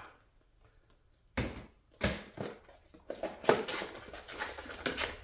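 Parcels being opened by hand: a few sharp knocks of a box being handled, then rustling and crinkling of packaging for the rest of the time.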